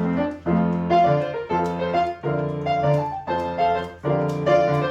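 Piano playing the instrumental link between verses of a children's sing-along song, with chords struck in a bouncy rhythm about twice a second.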